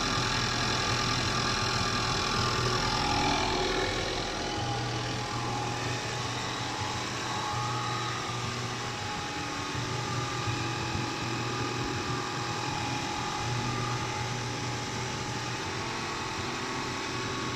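Ford EcoBoost Mustang's 2.3-litre turbocharged four-cylinder engine idling steadily, quiet on its stock exhaust, running normally after a fuel pressure sensor replacement.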